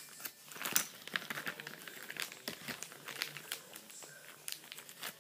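A small clear plastic bag crinkling and rustling in the hands as it is opened, a run of irregular crackles.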